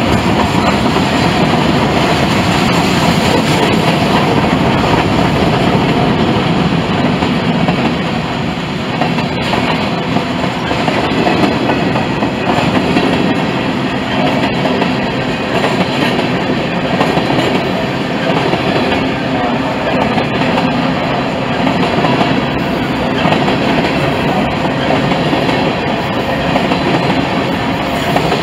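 Freight train cars rolling past close by: a steady rumble and clatter of steel wheels on the rails, with a few sharp clicks.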